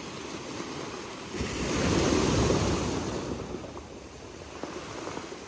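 Small waves breaking on a beach of rounded stones: one wave swells about a second in, crashes, and washes back out.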